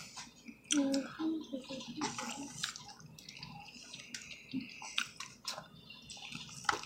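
Close-up eating sounds: wet chewing and lip smacking, with scattered sharp clicks.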